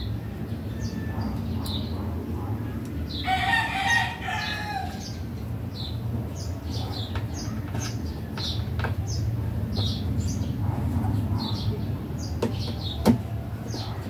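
A rooster crows once, starting about three seconds in and lasting about a second and a half. Small birds chirp briefly and repeatedly throughout, and a few sharp clicks come through, one louder near the end.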